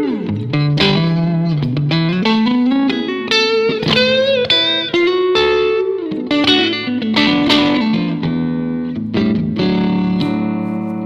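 Electric guitar played through a 1959 Fender 5F6-A Bassman tweed tube amp with four 10-inch speakers: single-note lead phrases with string bends and slides.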